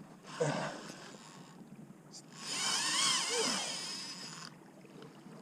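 Fishing reel drag whining for about two seconds as a big fish, a king mackerel, strips line on a hard run, its pitch wavering with the line speed. A brief thump comes about half a second in.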